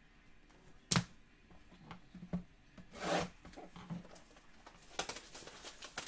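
Trading cards and a hard plastic card holder being handled on a table: a sharp tap about a second in, a rubbing slide around three seconds, then a few light clicks and taps near the end.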